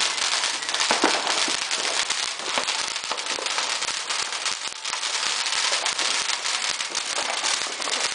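Firecrackers and fireworks going off: a dense, continuous crackle with many sharp pops.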